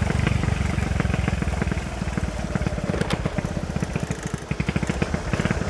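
Motorcycle engine running at low revs while riding, a steady rapid beat of exhaust pulses that eases off for a couple of seconds in the middle and then picks up again.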